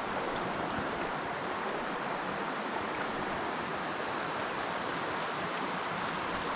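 Steady rushing of a mountain trout stream's flowing water.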